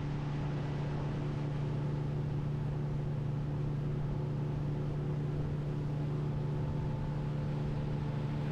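Small boat's outboard motor running at a steady speed, one even hum with no change in pitch.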